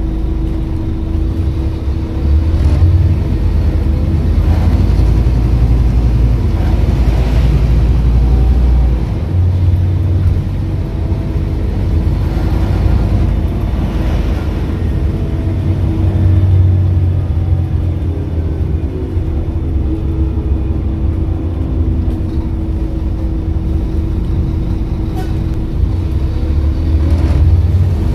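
Scania N230UD OmniCity double-decker bus's diesel engine and ZF gearbox, heard from inside the passenger saloon as the bus drives through town. The engine note swells and eases several times with the throttle over a steady hum.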